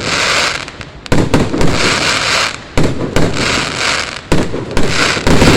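Fireworks going off one after another: a sudden bang about every one and a half seconds, each followed by about a second of crackling.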